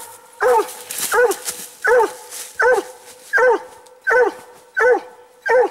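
Coonhound barking up a tree in a steady rhythm, about one short bark every three-quarters of a second, each dropping in pitch. This is a tree bark: the dog has a raccoon treed.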